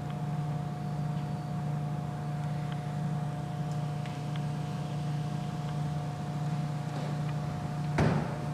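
A steady low mechanical hum with a thin higher tone above it, and one sharp knock near the end.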